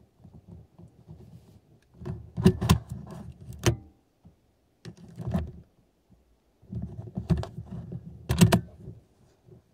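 A car key being worked in the ignition lock: sharp clicks and key jangling over handling noise, in three bursts, about two seconds in, around five seconds, and from about seven to nine seconds. The ignition is being switched on and off so the key programmer can read the car's ID46 (Crypto 46) transponder data.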